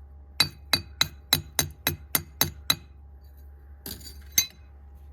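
Nine sharp metallic clinks in an even rhythm, about four a second, then a short rattle and one last loud clink.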